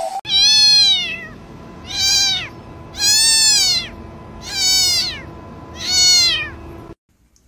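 Domestic black cat meowing loudly five times in a row, each meow rising and then falling in pitch, about a second apart.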